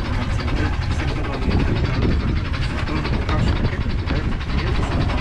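Fishing boat's engine running steadily, a fast, even pulsing with a strong low rumble.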